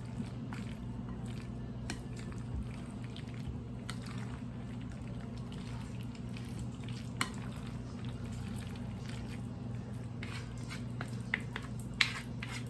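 Macaroni salad being stirred with mayonnaise in a bowl: soft wet squishing with light clicks of the utensil against the bowl, a sharper click about seven seconds in and a few near the end, over a steady low hum.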